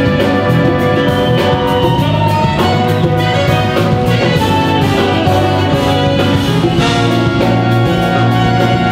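A big band playing live: brass and saxophone section holding sustained chords over a rhythm section with a steady drum and cymbal beat.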